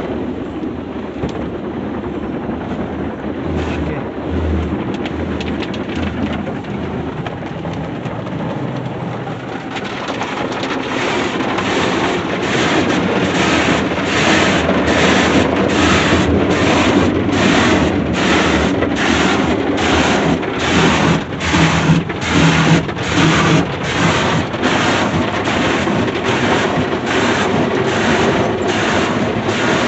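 An Autec soft-touch car wash working over the car, heard from inside the cabin: water spraying and cloth brushes scrubbing against the body and glass. About ten seconds in it grows louder and turns into an even slapping, a little under two beats a second, as the spinning cloth strips sweep over the roof and windshield.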